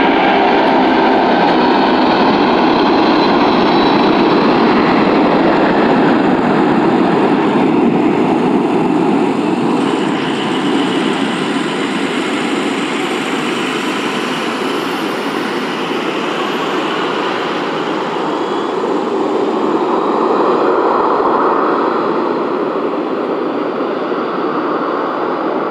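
A Boeing 747-436's four Rolls-Royce RB211-524G turbofan engines at takeoff thrust: a loud, steady rumbling noise that eases a little about ten seconds in as the jet pulls away down the runway.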